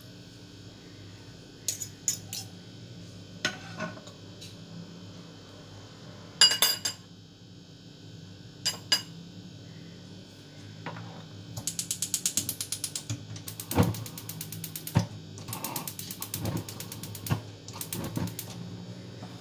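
Kitchen clatter while cooking: a few sharp knocks and clinks in the first half, then several runs of rapid metallic clicking, about ten clicks a second, over a steady low hum.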